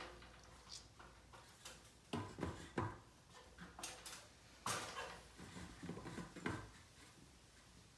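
Irregular light knocks and clicks of hand tools and parts being handled and set down, with a cluster of sharper knocks in the middle.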